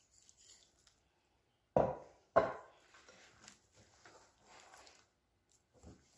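Hand kneading a stiff maida-and-oil dough in a glass bowl: two loud knocks about half a second apart roughly two seconds in, then softer pressing and rubbing sounds and a smaller knock near the end.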